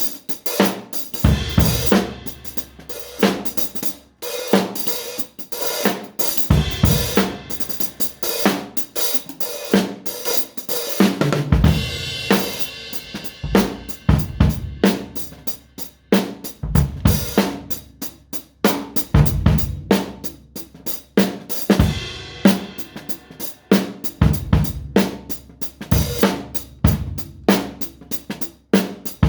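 Drum kit being played without other instruments: a fast run of hits on hi-hat, snare and cymbals, driven by bass drum strokes, with a cymbal ringing out about twelve seconds in.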